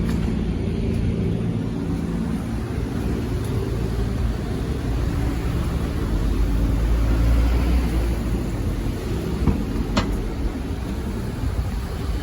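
A car running on the road, its engine and tyres making a steady low rumble that swells briefly about two-thirds of the way through. A single sharp click about ten seconds in.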